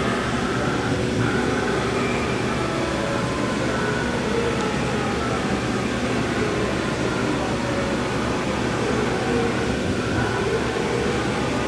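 A YCM TV-158B vertical machining center running with its table traversing: a steady mechanical hum with faint whining tones that drift slowly in pitch.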